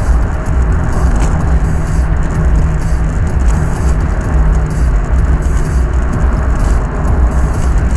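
Steady low rumble of a car cruising at about 60 mph, engine and tyre road noise heard from inside the cabin.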